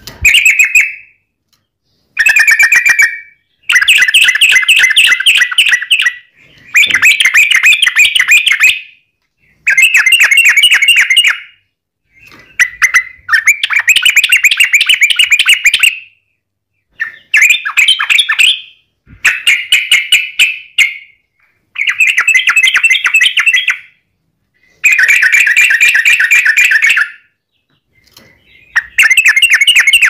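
Yellow-vented bulbul (trucukan) singing loudly in rapid chattering 'ropel' bursts, each about two seconds of fast repeated notes, about a dozen bursts with short pauses between them.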